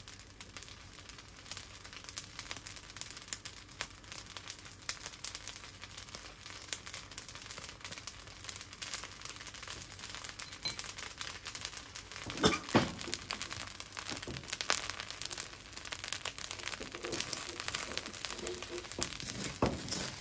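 Fried rice crackling and sizzling in a wok, with a wooden spatula stirring and scraping through it now and then and a louder stroke a little past halfway. The rice, made from frozen rice, is too wet, as the cook says.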